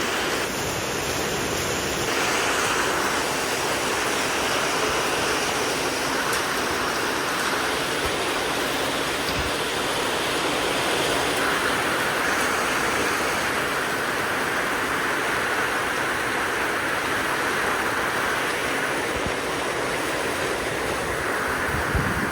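Heavy rain pouring steadily in a squall-line storm, an even, unbroken hiss.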